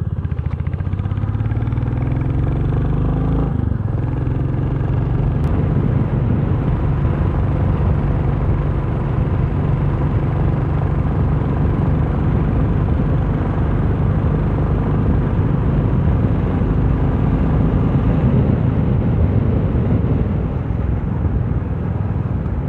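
Motorcycle engine heard from the rider's seat, pulling up in pitch for about three and a half seconds, then a break as the rider shifts gear and it settles into a steady cruise, with wind and road noise throughout.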